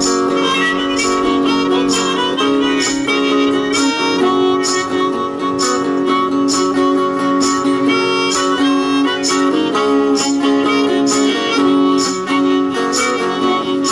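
Instrumental break on harmonica and strummed acoustic guitar: a harmonica melody of held notes over steady guitar strumming with a beat about twice a second.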